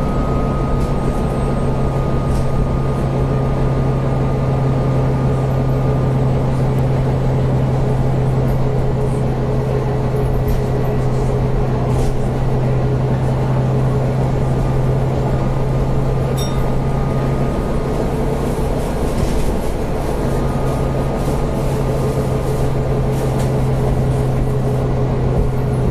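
Volvo B9TL bus's diesel engine and drivetrain running with a steady low drone, heard from inside the passenger saloon. A fainter steady whine sits above it.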